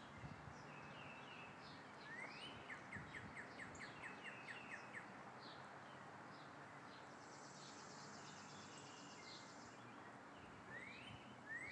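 Songbirds singing faintly over a steady quiet outdoor background: a rising note followed by a quick run of about a dozen short notes a couple of seconds in, a high buzzy trill in the middle, and another rising note near the end.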